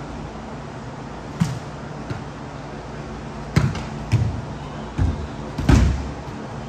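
Five separate thuds, the loudest near the end, over a steady low hum.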